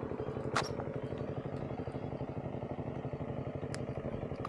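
A small engine running steadily nearby with an even, fast chugging beat. Two short sharp clicks sound over it, about half a second in and near the end.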